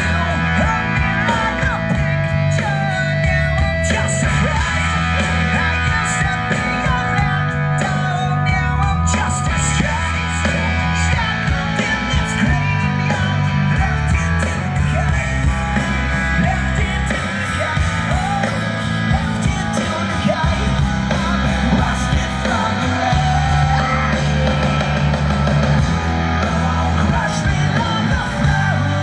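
Live punk rock band playing loud through a concert PA: distorted electric guitar, bass and drums, with the singer singing and yelling over them.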